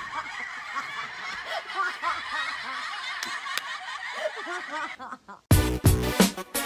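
Several people laughing and snickering, a dense chatter of chuckles. Near the end it cuts off and upbeat electronic music with a steady beat starts.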